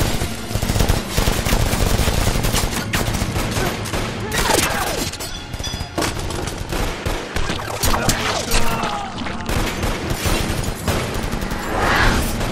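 Rapid gunfire from several handguns, the shots overlapping into a continuous volley that does not let up.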